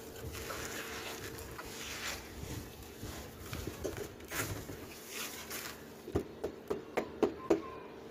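Hands crumbling and raking through dry, crumbly dirt in a tub, making gritty crunching and rustling. Near the end comes a quick series of sharp taps, the loudest sounds.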